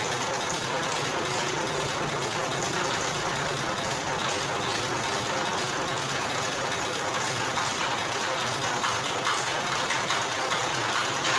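Sugarcane juice press running steadily on its electric motor: an even mechanical hum that stays at one level throughout.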